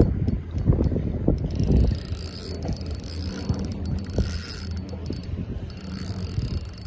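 Shimano Sienna 2500 spinning reel being cranked to reel in a hooked trevally, its gears turning, with handling knocks and a sharp knock at the start.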